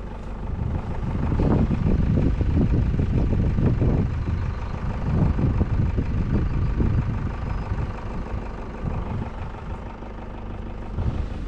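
A vehicle engine running at a steady idle, a constant low rumble that rises and falls a little in strength.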